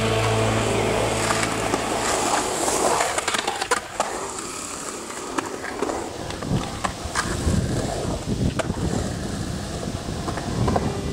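Skateboard wheels rolling and grinding over a concrete bowl, with scattered sharp clacks and knocks of the board.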